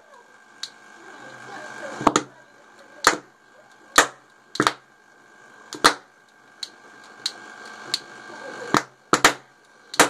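Hydrogen-oxygen gas bubbling from a homemade electrolysis cell into a glass of water, its foam lit again and again. It goes off in about ten sharp pops at irregular gaps of roughly a second, with bubbling hiss building between them.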